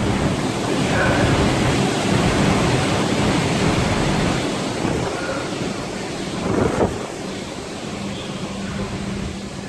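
Storm wind and heavy breaking sea heard from aboard a ship: a steady loud rush of noise, with a louder gust or crash about six and a half seconds in.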